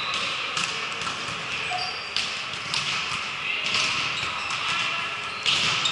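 Echoing sports-hall ambience: players' voices and chatter with a few scattered ball thumps on the gym floor.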